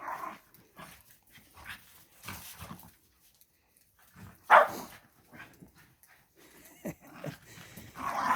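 Heeler-mix dogs play-fighting, with growls and barks coming in short scattered bursts; the loudest is a single sharp sound about halfway through.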